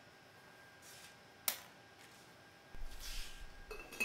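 Mostly quiet workshop room tone, with a single sharp click about a second and a half in. From about three seconds there is soft handling noise, and near the end a light metallic clink, as hands work with the metal engine cylinders and piston rings.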